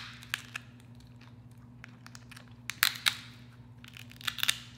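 King crab leg shell cracked and snapped apart by hand to get the meat out without scissors: sharp cracks and crunches, one at the start, a loud cluster about three seconds in and another near the end.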